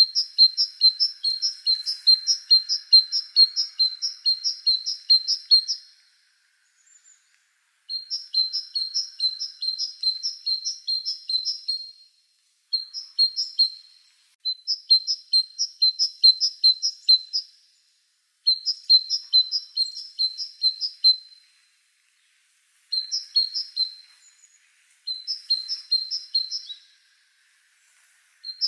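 A small bird chirping in fast runs of high, evenly repeated chirps, about three or four a second. Each run lasts a few seconds, with short pauses between.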